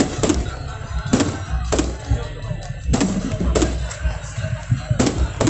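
Fireworks bursting overhead: a series of about seven loud bangs, each ringing out, irregularly spaced half a second to a second and a half apart, over a steady low rumble, with music and crowd voices underneath.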